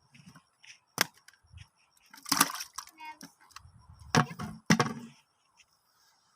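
A few sharp knocks and a short splashing rush, ending in two loud thuds about half a second apart.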